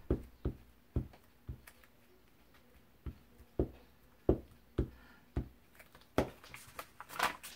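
Glue stick rubbed in quick strokes over a small cut paper piece on a cutting mat, with a short knock at each stroke about twice a second, pausing for a second or so partway through. Paper rustles near the end.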